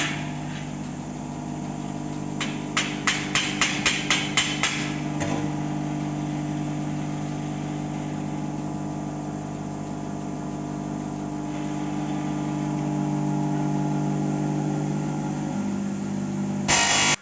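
A machine running with a steady mechanical hum, and a quick run of about eight sharp knocks about three to five seconds in.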